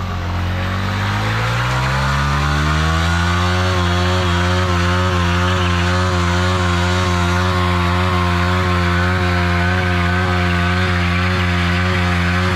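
Yamaha MT-15's single-cylinder engine revving up over the first few seconds and then held at high, steady revs during a burnout, the rear tyre spinning in place with the brake held.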